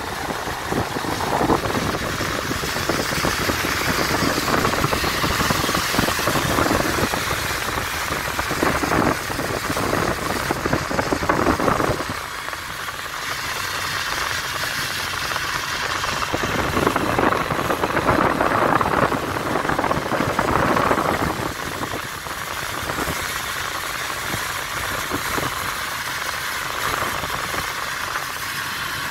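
Car driving on a wet road, heard from inside the cabin: steady road and engine noise that dips slightly a couple of times.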